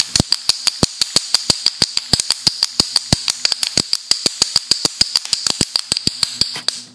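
Painted wooden toy hand drum (pellet drum) rattled by twisting its handle back and forth, the two beads on threads striking both heads in a fast, even rattle of about six or seven beats a second, fading out near the end.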